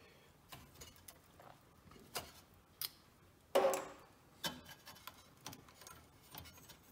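Light clicks and taps of hands working inside a vintage vacuum-tube television chassis, with a louder knock about three and a half seconds in as a glass tube is pulled from its socket; wiring near the flyback is then handled.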